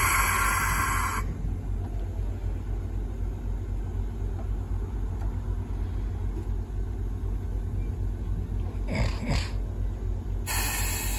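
D51 class steam locomotive standing with a steady low rumble. A loud hissing burst of steam dies away about a second in, and another starts near the end.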